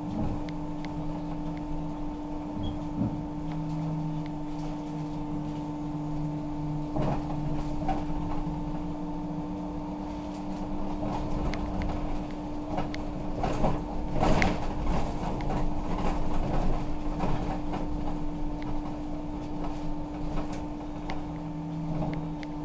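Interior of a moving city bus, heard from just behind the driver: a steady electrical hum under the running noise, with loose fittings rattling and knocking, most heavily about halfway through.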